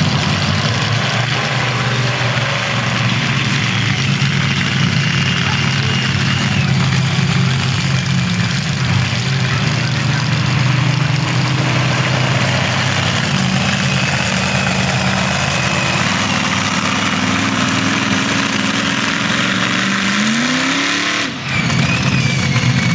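Monster truck's engine running as it drives around the arena, steady for most of the time, then revving up in a rising sweep near the end, followed by a brief dropout.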